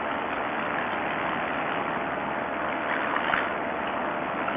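Paramotor's two-stroke engine running steadily in flight, a constant drone under a rushing noise.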